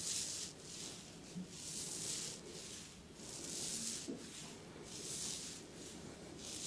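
Hands rubbing in rhythmic massage strokes, a soft swishing that swells about every one and a half seconds.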